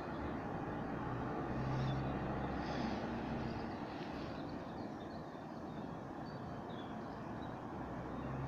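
A train passing through the junction: a steady rumble, with a low hum that swells for a second or so about two seconds in.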